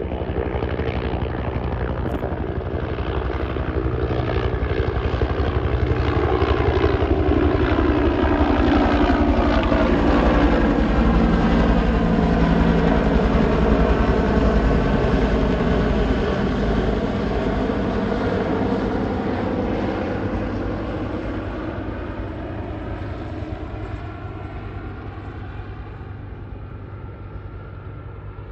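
Two helicopters, a Bell UH-1H Huey and an AS350 AStar, flying past: a steady, rhythmic rotor beat with turbine noise that grows louder to a peak about halfway, then fades away as they fly off.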